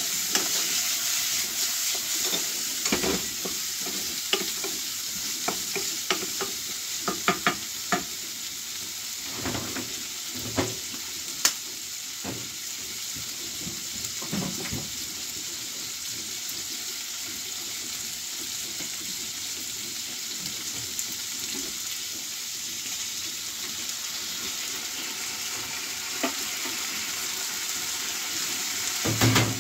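Diced vegetables sizzling steadily in a frying pan. A wooden spatula stirring them knocks and scrapes against the pan in scattered clacks during the first half and again near the end.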